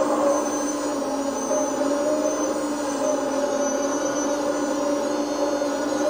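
Servonaut SMB sound module in an RC hydraulic excavator playing a simulated diesel engine sound, running steadily, with a high whine that shifts in pitch as the excavator arm and bucket move.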